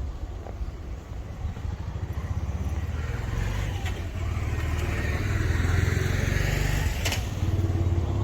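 A motor vehicle driving past on a street: engine and tyre noise swell to a peak in the middle and fade again, over a steady low rumble, with a sharp click near the end.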